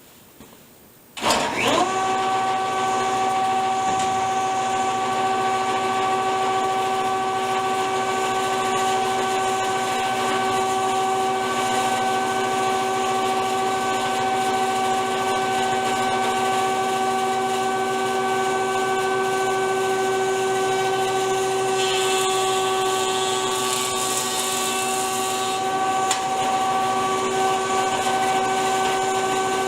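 Jointer switched on about a second in, its motor whining up to speed and then running with a steady tone. For a few seconds past the middle a higher hissing noise joins it as a board is fed over the cutterhead.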